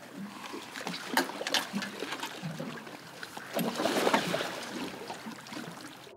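Sea water sloshing and splashing against a small boat's hull, with a few short sharp splashes, loudest around four seconds in.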